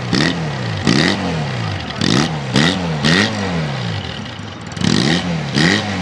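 Honda CD200's twin-cylinder engine revved with short throttle blips, heard at the exhaust: the pitch climbs and falls about seven times, with a brief drop back toward idle just past halfway.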